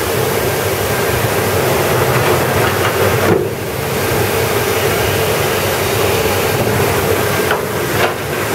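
Steady, loud industrial machinery noise at a coke plant: a constant hum with a broad hiss over it. The hiss drops away briefly about three seconds in and again near the end.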